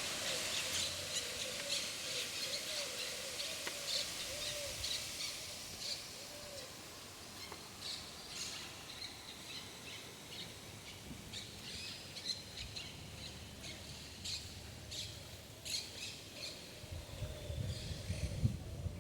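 Birds chirping and calling, with short high chirps throughout and a lower wavering call over the first six seconds or so. A low rumble comes in near the end.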